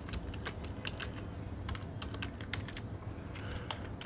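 Typing on a computer keyboard: irregular key clicks, about three a second, over a steady low hum.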